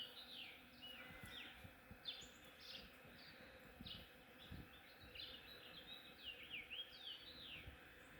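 Honeybees foraging in a flowering cherry tree make a steady, faint buzzing drone. Songbirds chirp through it with quick, repeated sweeping notes, thickest near the start and again about three-quarters of the way in.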